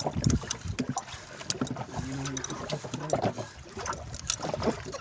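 Irregular clicks and knocks of fishing tackle and the wooden hull of a small fishing boat as a fish is reeled in on a baitcasting reel. There is a brief low hum about two seconds in.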